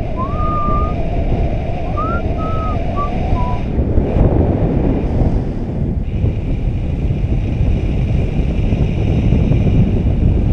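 Airflow rushing over the action camera's microphone during a paraglider flight: a loud, steady wind rush. A few short whistled notes that slide up and down sound over it in the first three seconds or so.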